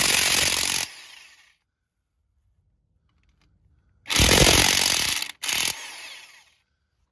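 Impact wrench hammering lug nuts loose on a steel car wheel. It runs until about a second in and winds down, then after a pause starts again about four seconds in, stops briefly, gives a short extra burst and dies away.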